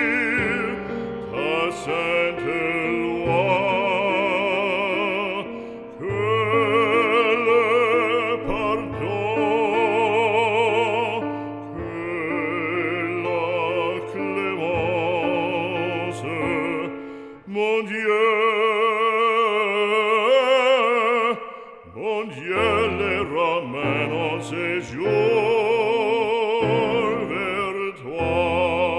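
Operatic singing with wide vibrato over an instrumental accompaniment.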